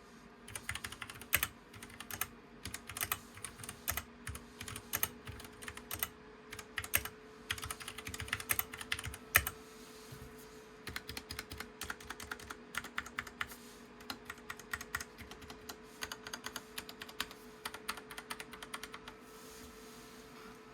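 Typing on a DREVO Seer PRO Mini mechanical keyboard with Gateron Brown switches: quick runs of key clicks with short pauses between them, stopping near the end.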